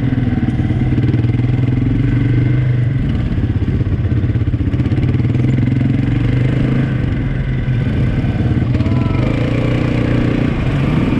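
ATV (quad bike) engine running steadily while riding, with small rises and dips in its note.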